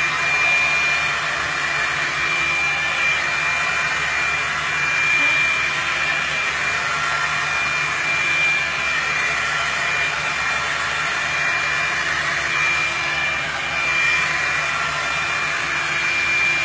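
Revlon blow dryer brush running steadily: a rush of blown air with a steady high whine.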